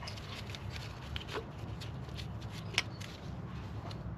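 Scattered light clicks and taps of hand tools and engine parts being handled, with one sharper click about three seconds in, over a steady low hum.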